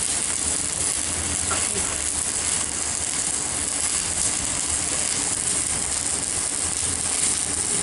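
Stick-welding arc burning a 4 mm electrode from a CNR welding machine: a steady, continuous crackling hiss.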